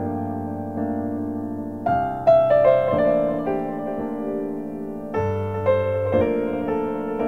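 Slow background music on a piano-like keyboard: sustained chords left to ring, with new chords struck about two seconds in and again about five seconds in.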